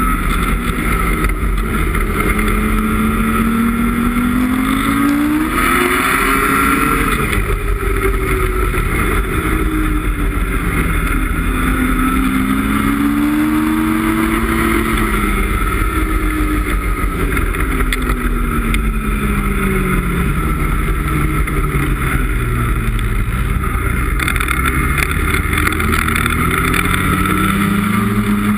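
2017 Ski-Doo MXZ X snowmobile's 850 E-TEC two-stroke twin running under way, its pitch rising and falling repeatedly as the throttle is worked, highest about six to seven seconds in.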